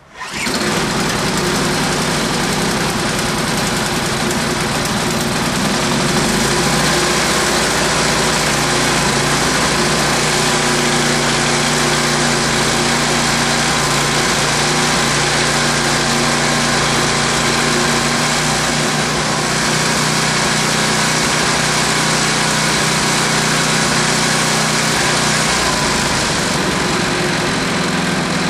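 Ariens 1028 snowblower's 10 hp four-stroke engine cold-started with the recoil pull cord, catching at once and then running steadily as it warms up.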